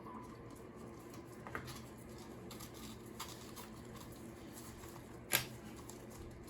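Faint handling sounds as a waxless toilet seal is laid onto the floor flange: light clicks and rustles, with one sharper click about five seconds in, over a low steady hum.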